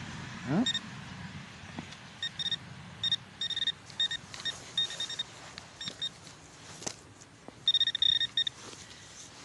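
Metal detector giving short, high-pitched beeps in irregular bursts, with a longer run of beeps near the end, as it sounds off over a buried metal target. A couple of faint knocks come in between.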